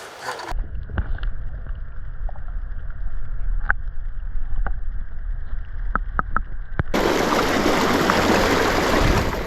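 Muffled low rumble with scattered sharp clicks, as picked up by a camera held in the water, with the high end cut off. About seven seconds in it changes abruptly to a loud, steady rush of flowing stream water.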